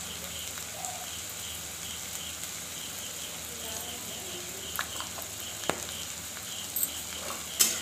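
Chopped onions and spices frying in oil in an iron kadhai, a steady low sizzle. A few light clicks of the steel spatula against the pan come after the middle, with a sharper one near the end.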